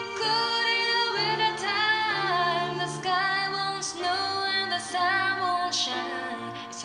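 Music with a woman singing over a bass line, played through the loudspeaker of a Graetz Polka 613 valve table radio.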